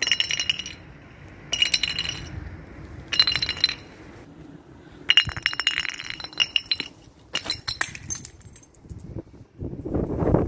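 Glass clinking and tinkling in five separate bursts, each with a bright ringing tone; the later bursts are longer and more jangling, like shards being shaken or breaking.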